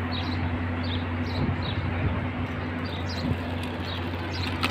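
Small birds chirping repeatedly, short high chirps about two or three a second, over a steady low hum.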